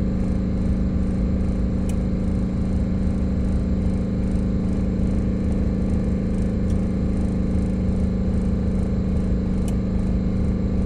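Bus engine running steadily with a constant drone while its air compressor charges the air tanks toward cut-out. No air-dryer purge is heard, the sign that the dryer is not purging.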